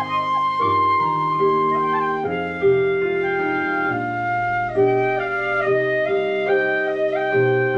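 Shinobue bamboo flutes playing a melody together in several parts, the notes held and changing every half second or so, over lower sustained notes.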